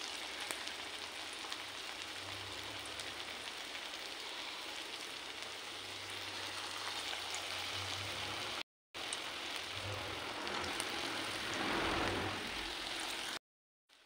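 Potato-and-onion pakora batter sizzling in hot oil in a kadai as portions are dropped in by hand: a steady frying hiss that cuts out briefly twice.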